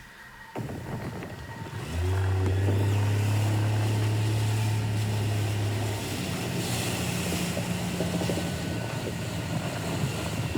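Motorboat engine running under way, with wind and water noise. About two seconds in, the engine settles into a loud steady drone, and around six seconds in its note shifts higher.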